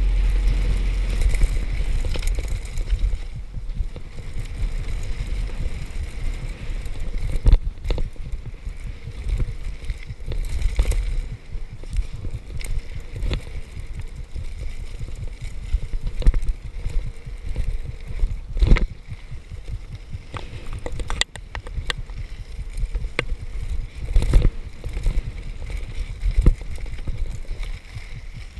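Mountain bike rolling fast downhill on a dirt and gravel trail: wind rushing over the camera microphone and tyres rumbling over the ground, with occasional sharp knocks and rattles as the bike hits bumps.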